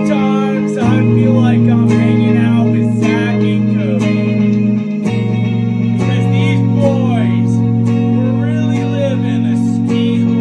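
Semi-hollow electric guitar playing sustained chords that change every few seconds, with a man singing over it.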